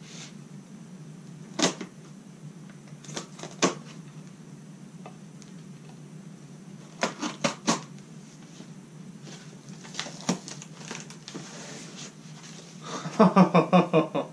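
Paper and tape wrapping being torn off an axe head: a series of sharp crackling rips and rustles. Near the end a man laughs.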